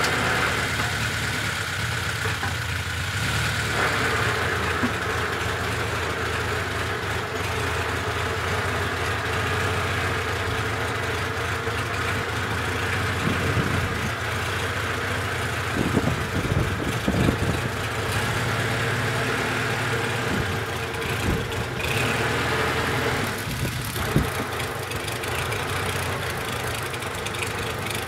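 Homemade tractor's engine running steadily at idle, with a few sharp knocks and clunks about halfway through and again near the end.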